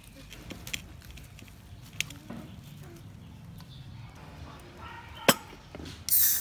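Soft handling of a raw whole chicken in a metal wok, then a sharp click about a second before the end and a short, loud hiss as an aluminium Coca-Cola can is pulled open.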